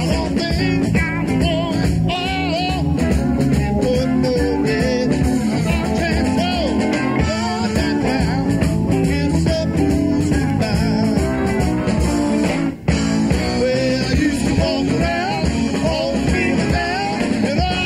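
Live recording of a blues-rock band playing: electric guitars, bass and drums, with singing. The sound drops out for a split second about thirteen seconds in.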